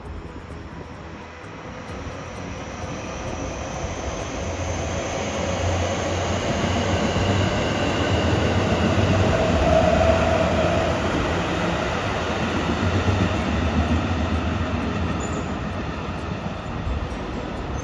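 A train passing on the rails: the running noise builds to a peak about halfway through and then fades as it moves away, with a faint steady whine over it.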